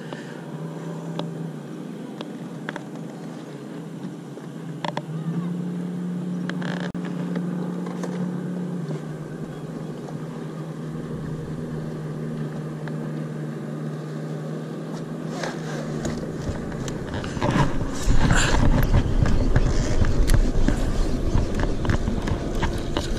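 A steady low motor hum that steps up in pitch about five seconds in, drops back a few seconds later and fades out. Near the end a louder rumbling, crackling noise takes over.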